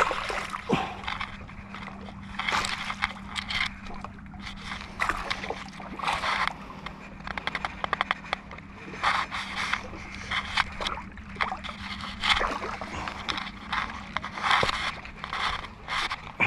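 Small waves sloshing and lapping against the rocks of a breakwater in irregular splashes, about one a second.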